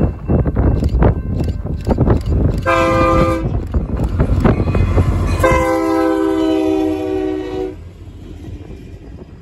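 Union Pacific SD70M diesel locomotive's air horn sounding a multi-note chord: one short blast, then a long blast about two seconds later. Under it the lead locomotives' diesel engines rumble, falling away near the end as they pass.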